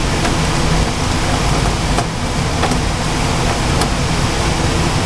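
Carrier water source heat pump running: a steady, loud mechanical noise, with a few faint ticks in the middle.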